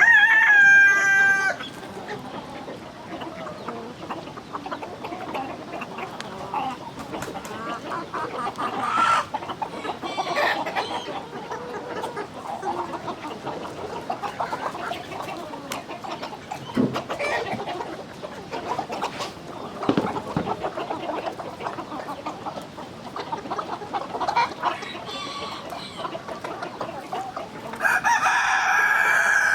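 A flock of chickens clucking, with a rooster crowing loudly right at the start and again near the end.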